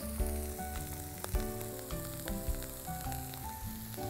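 Diced carrots, onion and garlic frying in oil in a wok, a soft steady sizzle with a few small ticks, under soft background music of held notes.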